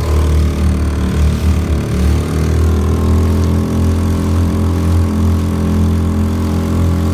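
Honda 2.3 hp single-cylinder four-stroke outboard motor running steadily at a constant speed, driving the boat under way.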